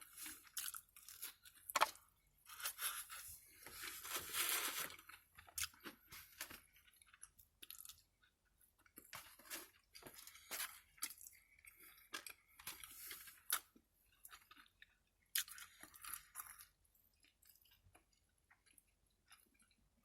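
Close-up eating sounds: a person chewing and crunching fried food, with wet mouth clicks and short crackles between bites. It goes nearly quiet for the last few seconds.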